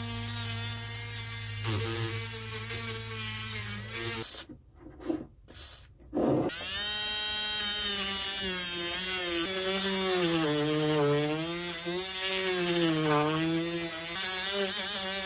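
Handheld rotary tool running as it cleans the threaded metal parts of a 1930s Rain King sprinkler. Its motor whine holds steady at first, stops about four seconds in, and starts again about two seconds later with a wire brush on the bit, the pitch wavering up and down as the brush is pressed against the metal.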